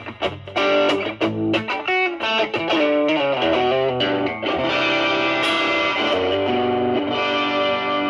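Stratocaster with single-coil pickups played through a ProCo Brat (Rat-style) distortion pedal with an OP07 op-amp chip, gain at about 1 o'clock, into a Marshall Valvestate amp. A run of quick single notes gives way about halfway through to longer held notes that ring out.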